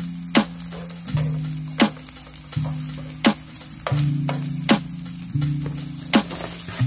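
Chopped garlic sizzling in butter in a nonstick frying pan while it is stirred, under background music with steady low tones and a sharp beat about every second and a half.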